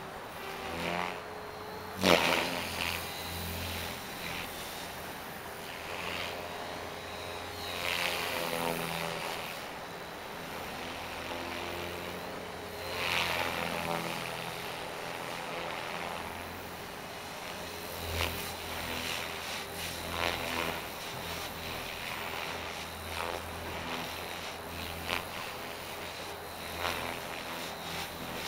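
Electric MSH Prôtos 500 RC helicopter in 3D flight: main rotor blades whooshing over the electric motor's whine, swelling in surges every few seconds as it manoeuvres. A single sharp bang about two seconds in.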